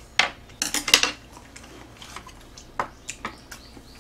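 Spoons and chopsticks clinking and scraping against a metal serving tray and dishes: a quick cluster of sharp clicks about a second in, then a few single clicks near the end.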